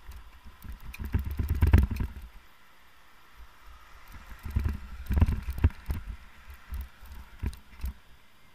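Bicycle riding down a flight of stairs: rapid clattering knocks and thumps as the wheels drop off each step and the bike rattles. There are two loud runs, the first the loudest, then a few lighter knocks.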